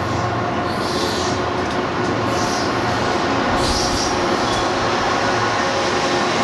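Diesel locomotive approaching while still out of sight, its engine and rolling wheels making a loud steady rumble that slowly grows louder, with faint steady higher tones.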